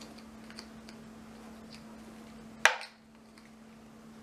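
Light plastic ticks as a snap-on clipper guard comb is worked onto a clipper blade, then one sharp, loud click about two and a half seconds in as the spring-loaded guard snaps into place.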